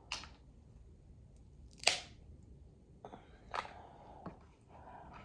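Thick Dungeness crab shell cracking and snapping in a few sharp, separate cracks, the loudest about two seconds in.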